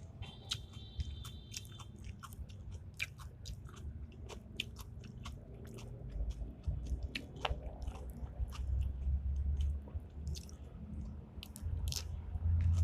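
A person chewing raw cucumber, with many short crisp crunches. Dull low thumps come in the middle and near the end.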